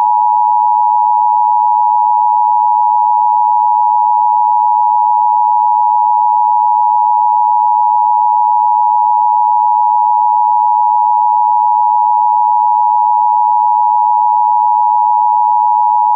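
A loud, steady electronic alert tone from a mock Emergency Alert System broadcast, one high pitch held unbroken without any change.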